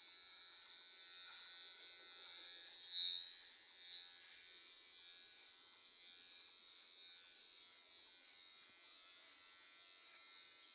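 Electric hair clipper running with a steady high-pitched buzz while cutting hair, growing louder twice around two to three seconds in.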